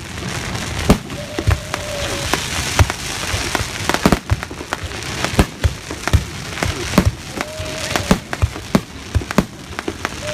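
Fireworks display: a rapid, irregular series of sharp bangs, with a crackling shower of sparks about two to four seconds in.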